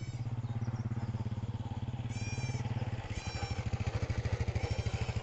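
A small engine running steadily with a rapid, even putter. Two short, high chirps come about two and three seconds in.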